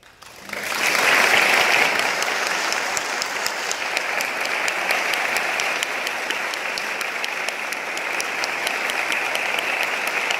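Audience applauding: it starts about half a second in, swells quickly to full strength within the first two seconds and then holds steady.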